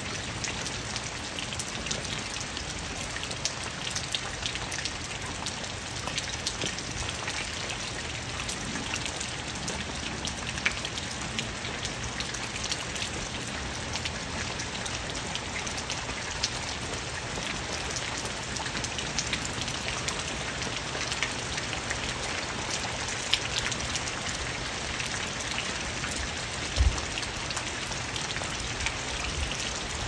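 Steady rain falling on tree leaves, with many individual drops ticking through the hiss. There is one dull low thump near the end.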